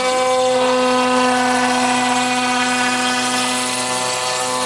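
CNC router spindle running with a steady pitched whine over a hiss.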